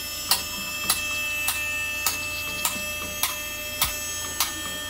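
Two-post vehicle lift going up: its hydraulic power unit runs with a steady whine while the lift's safety locks click past each notch, a little under two clicks a second.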